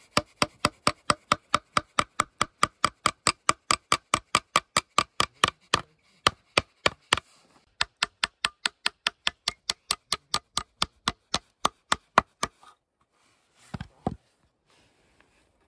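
Hammer driving a steel nail into a wooden strip: rapid, even strikes at about five a second, pausing briefly about seven seconds in, then a second run that stops about twelve seconds in. A couple of duller thumps follow near the end.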